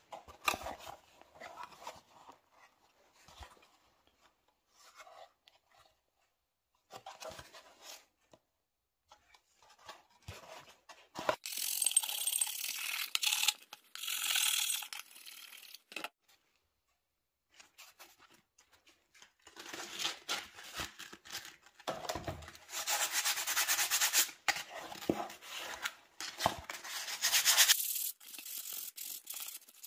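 Hand scraping and rubbing on the plastic cylinder cooling shroud of a Honda Dio scooter, smoothing its surface with a thin metal tool. A few faint handling knocks come first, then two short bursts of scraping about halfway through, and a longer run of quick scraping strokes in the second half.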